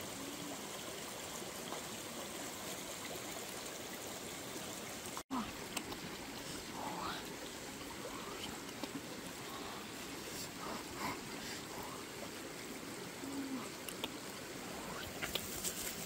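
Steady outdoor hiss with a few faint short chirps, and near the end a cluster of soft clicks and crackles from a hand digging through dry grass and soil. The sound cuts out for an instant about five seconds in.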